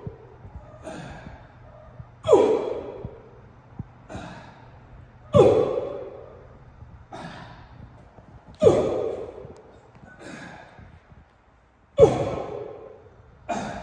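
A man exhaling sharply and forcefully with each explosive dumbbell rep, a loud breathy burst about every three seconds that trails off quickly, with quieter breaths drawn in between.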